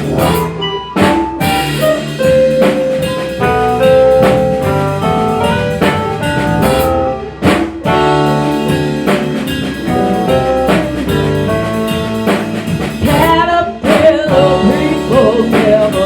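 Instrumental break of a pop song: drums with sustained melodic lead notes over the backing. A wavering lead line with vibrato enters near the end.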